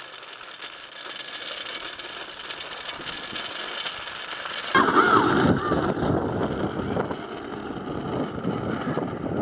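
Hard plastic wheels of a low ride-on trike rolling and grinding over asphalt as it is towed behind a bicycle. About halfway through the noise becomes abruptly louder and fuller.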